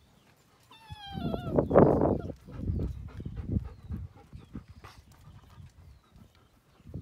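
Old English Sheepdogs: a dog gives a short, high, wavering whine about a second in, then a loud gruff bark-like outburst, followed by a few softer gruff sounds.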